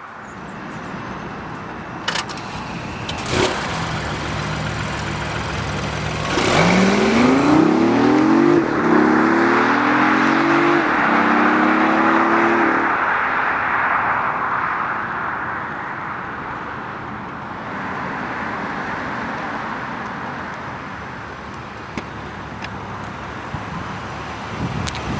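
BMW i8 accelerating hard: the engine note climbs in pitch through about three upshifts starting some six seconds in. It then settles into a steady cruise with a loud rush of road and wind noise. There are two sharp clicks early on.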